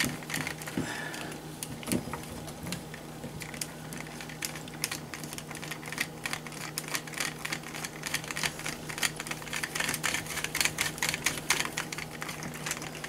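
Hand screwdriver turning small screws into the motor mount of an HSP RC truck's chassis: a run of light, irregular clicks and ticks that come thicker after about four seconds, over a steady low hum.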